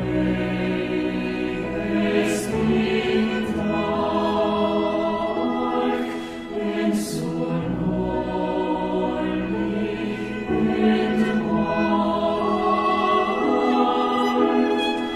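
Choral music: a choir singing slow, held chords that change every few seconds.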